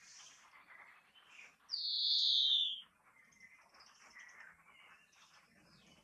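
European greenfinch singing: soft twittering trills, with one loud drawn-out buzzy wheeze falling in pitch about two seconds in, lasting about a second.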